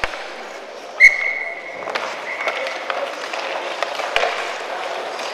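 Sounds of a youth ice hockey game in an echoing rink: skates scraping and sticks clacking on the ice and puck. About a second in comes the loudest sound, a sharp clack followed by a short, high ringing tone that comes back more faintly a moment later.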